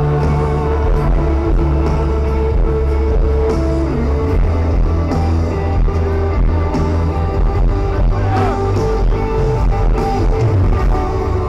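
Live worship band music, loud and steady, with held chords over heavy bass and some singing.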